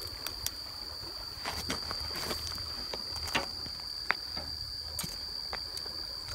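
A steady high-pitched insect chorus, with scattered clicks and crunches of footsteps on gravel and shell.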